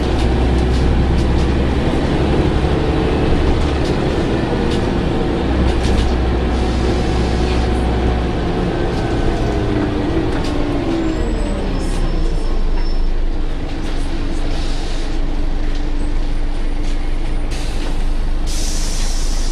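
Scania OmniCity articulated bus heard from inside the saloon: the diesel engine runs steadily under way, its note falling about halfway through as the revs drop, then holding lower. Short hisses of air come near the end.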